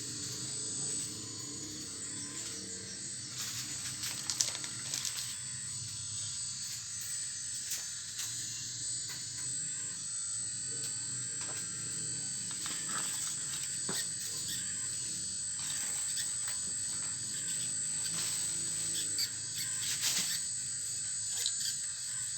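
A full-metal RC excavator working, its motors and hydraulic pump running with a steady high whine, with a few sharp clacks and scrapes as the bucket digs into rock and soil.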